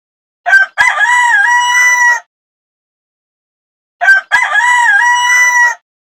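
Rooster crowing cock-a-doodle-doo twice, each crow a short opening note and a long held call with a dip in pitch partway through.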